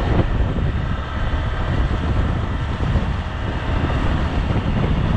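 Wind buffeting the microphone of a moving motorcycle, over the bike's engine and road noise, steady throughout.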